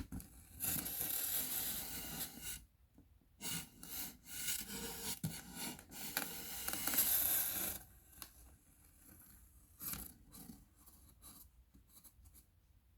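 A round cake box and its plastic lid being rubbed and scraped for ASMR: a scratchy rub of about two seconds, a short pause, then a longer one of about four seconds, followed by scattered light taps and clicks.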